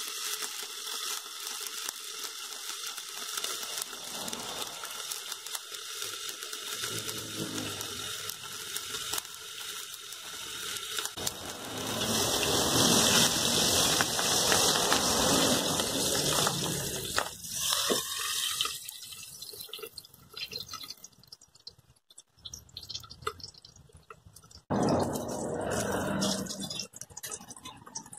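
Dried round scad (galunggong) frying in hot oil in a wok: a continuous sizzle with crackles. It grows louder and brighter about halfway through, while the lid is off and the fish are turned, then thins to scattered crackling, with a louder stretch near the end.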